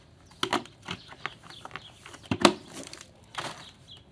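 A plastic bucket lid being handled and pressed back onto a plastic pail: a string of sharp plastic clicks and knocks, the loudest about two and a half seconds in, with some rustling.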